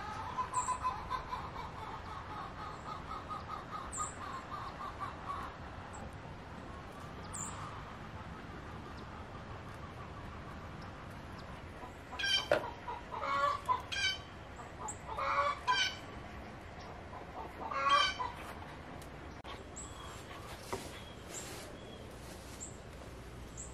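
Chickens calling: a quick run of clucks at first, then several louder, longer calls in the middle. A few short high bird chirps are heard as well.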